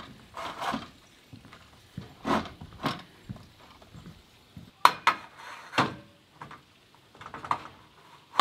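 Metal top-rail cap being slid over an aluminium rail insert and pressed home: a string of short metal-on-metal scrapes and knocks, loudest about five seconds in.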